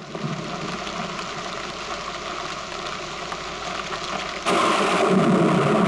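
Heavy rain falling on a street, a steady hiss that suddenly gets louder about four and a half seconds in.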